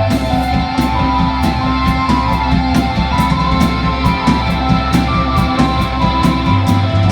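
A rock band playing live: electric guitar over low bass notes with a steady drum beat.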